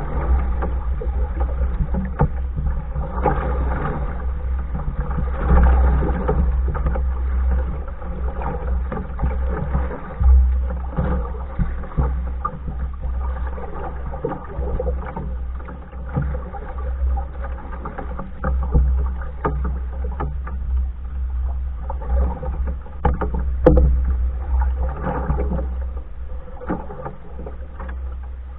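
Paddling a Hornbeck New Trick solo canoe: the paddle dips and pulls through the water in a loose rhythm, water splashing and dripping off the blade, over a constant low rumble.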